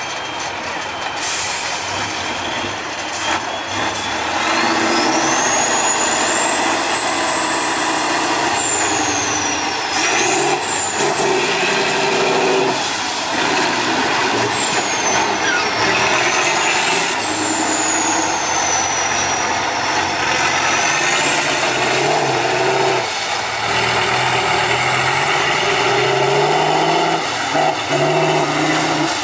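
Tatra 815 6x6 trial truck's diesel engine revving hard under load, getting louder about four seconds in. A high whistle rises and falls with the revs.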